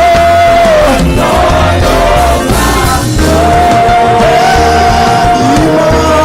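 Live gospel praise-and-worship music: a band with heavy bass under a voice holding long sustained notes.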